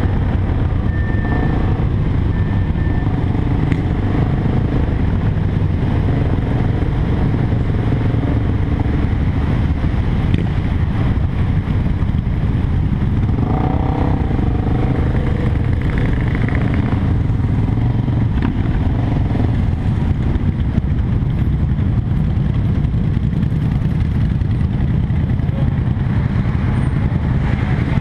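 BMW F800GS parallel-twin engine running steadily under a slow group ride, heard from the bike itself, with other motorcycles around it.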